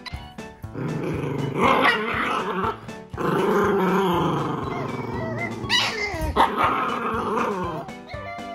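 An adult black mame Shiba Inu and a mame Shiba puppy growling back and forth at each other in play, the puppy imitating the older dog's growls, in several long bouts.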